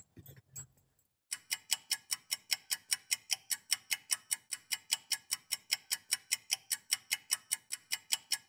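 Clock ticking sound effect: an even, fast run of sharp ticks, about five a second, starting just over a second in.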